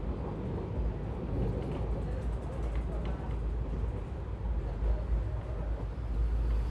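Passenger train running along the track, heard from an open coach window: a steady deep rumble of the wheels and coach on the rails.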